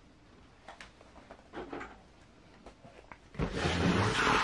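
A few faint knocks and clicks as a model truck is moved aside, then about three and a half seconds in, a loud scraping rustle of a cardboard kit box being handled and slid onto the work mat.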